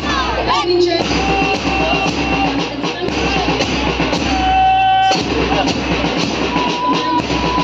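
Music with singing and a steady beat of about two pulses a second.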